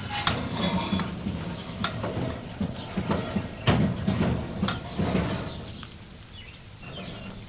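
New Holland Super Hayliner 69 baler's drive being turned over by hand, its gears and linkage giving irregular metal clicks, knocks and creaks, freshly filled with new gear oil to test how freely it turns. The clicking thins out and goes quieter after about five seconds.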